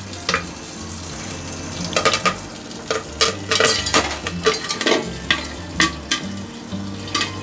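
Popcorn kernels popping in hot oil in a lidded pan: sharp, irregular pops, about two a second, over a steady sizzle of the oil.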